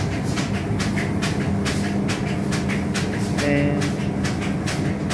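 A machine running with a steady hum and rapid, even clicking, about four or five clicks a second.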